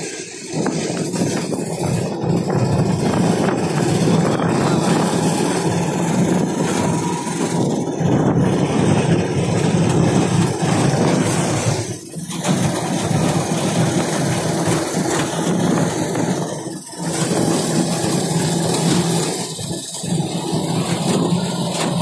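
Auto-rickshaw engine running steadily on the move, heard from the open passenger compartment with wind and road noise. The sound dips briefly about halfway through and twice more near the end.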